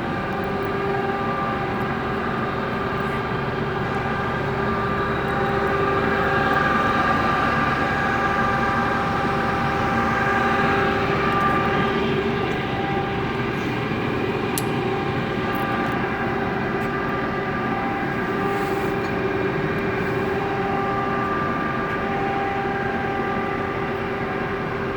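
1954 LeBlond 21-inch engine lathe running under power, a steady mechanical hum with a whine of several steady tones that swells a little partway through.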